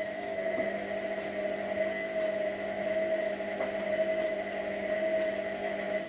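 Whirlpool front-loading washing machine running, its motor giving a steady whine as the drum turns the laundry. The whine falls away abruptly right at the end as the drum slows.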